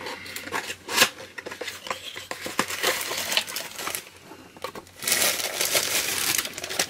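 Packaging crinkling and rustling as a boxed collectible is opened and unwrapped, mixed with small clicks and taps, with a longer burst of crinkling near the end.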